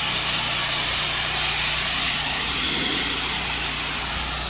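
Pressure washer running steadily, its water jet hissing as it sprays wood at moderate pressure, with the machine's motor humming underneath.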